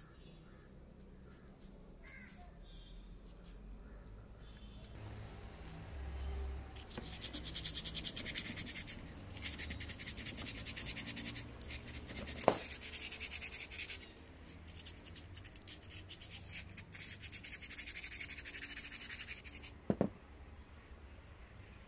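Rapid scratchy rubbing strokes on a small metal burner part of a kerosene pressure lantern as it is scrubbed clean, coming in spells of a few seconds from about a third of the way in. There is a sharp knock midway, and a thud near the end as the part is set down on the table.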